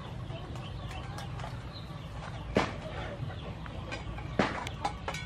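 Free-range chickens clucking while they forage, over a steady low background noise. Two short, sharp sounds stand out, about two and a half and four and a half seconds in.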